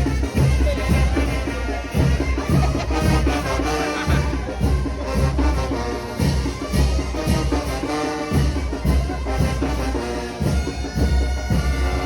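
Brass band playing a chinelo son: sustained trumpet and trombone notes over a steady, regular bass drum beat.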